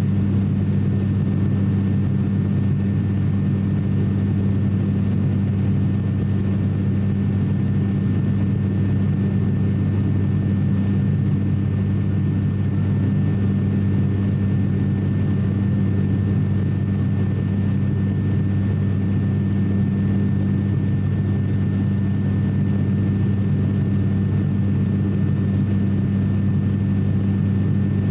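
Cabin noise of an ATR 42-600 turboprop in flight, heard beside the propeller: a loud, steady low propeller drone with a faint steady high whine over it.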